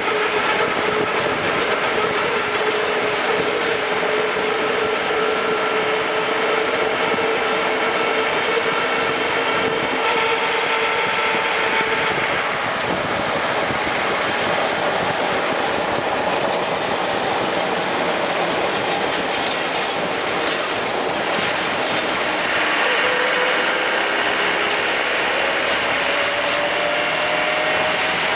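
Land Rover Defender 110 on the move: a steady rolling noise with whining tones on top. The whines slowly sag in pitch, then a new whine climbs in pitch over the last few seconds.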